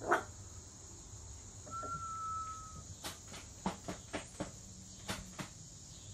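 American Bully puppies making short squeaks and whimpers, with a sharp cry at the very start and one thin, high whine about two seconds in that lasts about a second and sags slightly in pitch. Light knocks and scuffs come and go as they move about.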